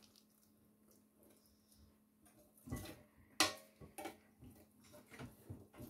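Metal kitchen tongs clicking and knocking against a stainless steel roasting pan and its wire rack as roast chickens are turned. It is quiet at first, then a handful of scattered clicks and knocks start a little over halfway through, the loudest about three and a half seconds in.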